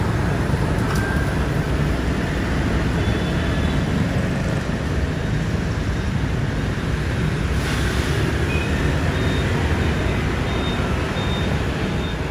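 Street traffic: motorbikes passing and a sleeper coach's engine running, a steady low rumble.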